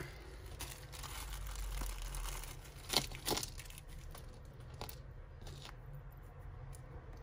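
Small plastic bags rustling and crinkling as they are handled, with a few sharp clicks about three and five seconds in.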